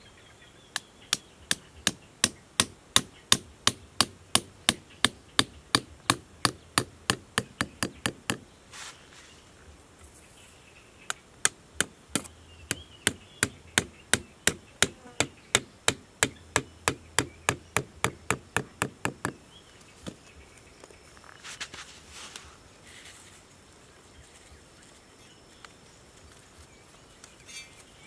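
Sharp, even knocks of a thin wooden stake being hammered into sandy ground, about three blows a second, in two runs of some eight seconds each with a short pause between.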